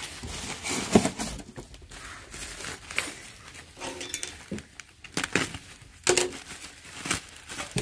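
Plastic wrapping crinkling and rustling as it is handled, with a few sharper crackles and clicks.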